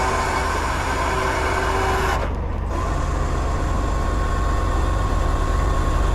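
Heavy truck's diesel engine running steadily, with a loud hiss for about the first two seconds and then a steady whine.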